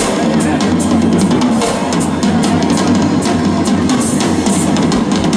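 Southern rock band playing live through a PA: electric guitars and bass over a busy drum kit, with frequent snare and cymbal hits and a steady kick drum, in an instrumental stretch of the song.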